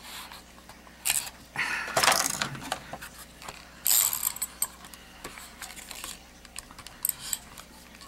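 A tape runner being pressed and drawn along cardstock in short strokes. Its mechanism makes several brief rasps about one, two and four seconds in, with small clicks and paper handling between them. The runner is not laying its tape properly.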